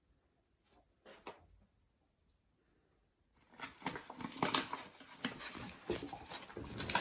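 Scratchy, rustling noises from a young dog moving close to the microphone, starting about three and a half seconds in after near silence.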